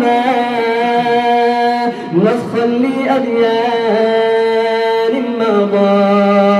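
Male voice singing an Arabic nasheed without instruments, holding long drawn-out notes that step from one pitch to the next between the lines of the verse.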